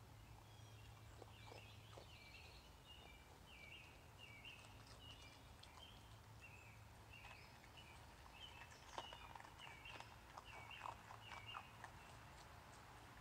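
A songbird singing in the background, a long run of short, quick chirping notes at about two a second. About nine seconds in come faint clicks and taps as a raccoon feeds at a plastic tub.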